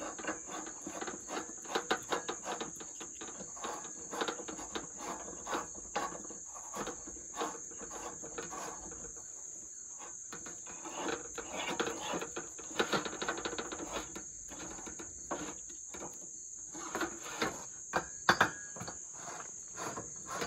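Green propane cylinder being screwed by hand onto a Coleman camp stove's regulator: irregular clicks and scraping rasps of metal threads and fittings, in several clusters. A steady high insect drone, like crickets, sounds underneath.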